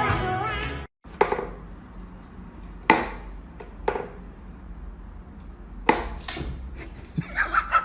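Music cuts off about a second in; then a handful of sharp, separate wooden knocks and taps from a wooden whack-a-mole cat toy as its pegs are pushed and a cat bats at the popping mole. A quick run of short pulses starts near the end.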